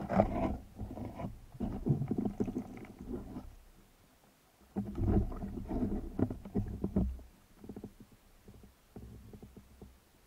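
Muffled underwater rumbling and short knocks from a spearfisher's movement and speargun handling as he pulls in a speared sea bass, heard through an underwater action camera. The noise comes in three bouts, the last one shortly before the end.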